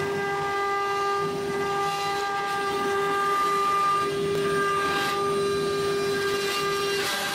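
Metal CNC router's spindle running with a steady high whine and a ladder of overtones over a rough cutting noise as the tool mills a metal block. The whine breaks off briefly near the end under a short rush of noise.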